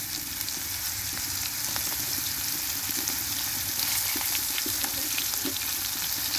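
Onion pieces sizzling in hot oil in a steel kadai: a steady frying hiss with scattered small crackles.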